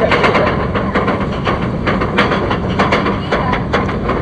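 Roller coaster train clattering on its track, with a steady low hum under many sharp, irregular clicks.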